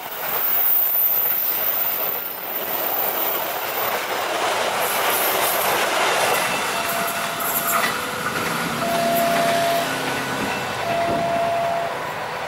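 Passenger train coaches rushing past at speed, a loud steady noise of wheels on rail. From about seven seconds in, a level-crossing warning alarm sounds over it, a single electronic tone about a second long, repeating every two seconds.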